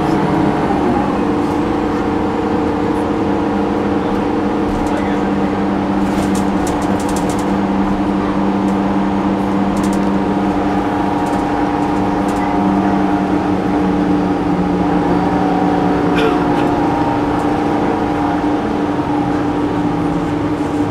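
Inside a Gillig Advantage transit bus under way: its Cummins ISM diesel engine and Voith D864.5 automatic transmission run steadily, giving a constant drone with several held whining tones over road noise.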